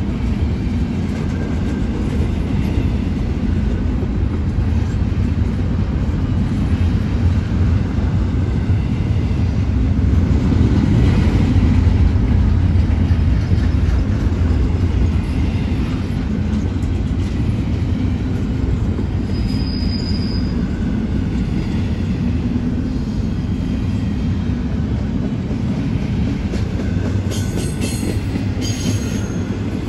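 A long freight train's cars rolling past with a steady, loud low rumble of steel wheels on rail, swelling about a third of the way through.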